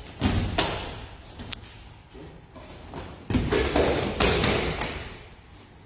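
Kyokushin karate strikes and kicks landing on the body and guarding arms, with bare feet stepping on the mats: several dull thuds, bunched just after the start and again from about three seconds in.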